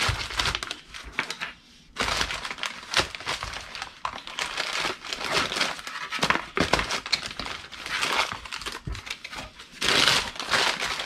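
Packing paper being crumpled and stuffed into a cardboard shipping box as padding, an irregular crinkling and rustling. It dips into a brief lull about two seconds in and comes back louder near the end.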